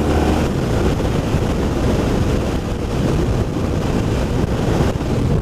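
Wind rushing over the microphone on a BMW R1200RT motorcycle under way, with the boxer-twin engine running beneath it. A few steady engine tones fade out about half a second in, leaving a dense, even wind noise.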